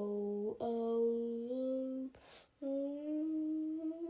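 A high voice holding long, drawn-out vowel sounds in three stretches, the pitch stepping and slowly rising in the last one: the 'ah… ah…' build-up to a cartoon sneeze. A short breathy intake comes in between, a little past halfway.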